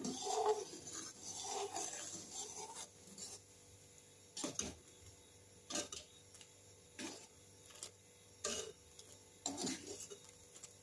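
A ladle scraping and rubbing against the bottom of a metal kadhai as thick carrot kheer is stirred continuously to keep it from sticking. The first few seconds are steady rubbing. After that come separate short scrapes, about one every second or so.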